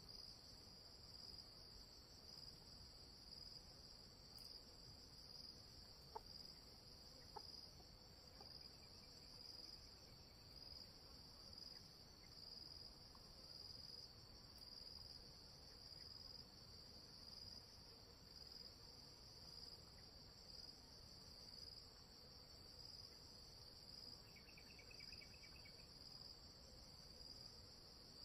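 Faint, steady high-pitched insect chorus trilling with a slight pulse, with a few faint ticks and a short second trill near the end.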